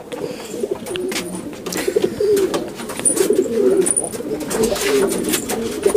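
Domestic pigeons cooing over and over, low wavering calls, with a few short sharp clicks mixed in.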